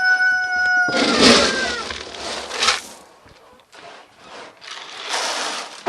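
A rooster's crow trails off in the first second or two. Over and after it come rushing, pouring sounds, twice: scoops of dry cattle feed poured into a trough.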